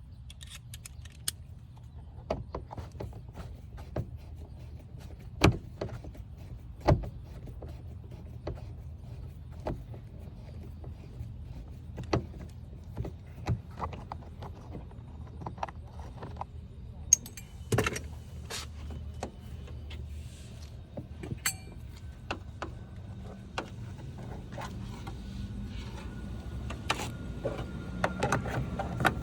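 Irregular small clicks, taps and rattles of hand tools working on a car's door panel fasteners, with a few louder knocks, over a steady low background hum.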